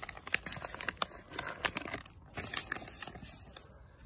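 A dog nosing through a box of crinkly shredded paper filler and plastic-wrapped treat packets, setting off a run of sharp rustles and crackles that thin out and fade near the end.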